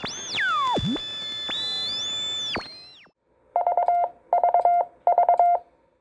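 Synthesized intro sound effect: sweeping, gliding electronic tones for about three seconds. Then, after a short gap, three quick groups of beeps on one steady pitch.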